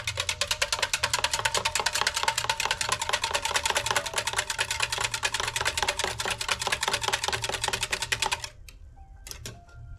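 Wire whisk beating a thin batter in a steel mug: rapid, even metallic clicking as the whisk wires strike the sides of the mug. The whisking stops about eight and a half seconds in, leaving a few scattered clicks.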